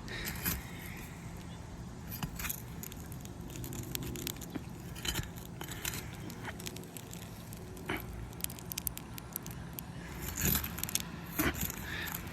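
A metal pry bar scraping and clicking under asphalt roof shingles, in scattered short strokes, prying the shingle and breaking its sealant bond to free it.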